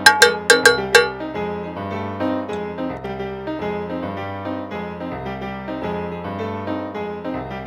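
Background piano music, with a cowbell struck with a beater a few times in the first second before the strikes stop and the music continues alone.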